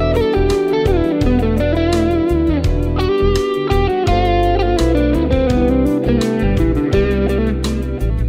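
PRS SE Custom 24-08 electric guitar playing a single-note lead melody with bends and slides, over a backing track of drums and bass.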